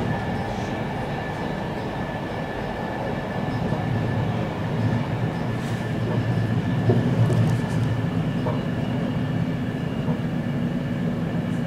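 Interior running noise of an X10 electric commuter train in motion: a steady low rumble with a thin, steady whine above it and occasional faint clicks.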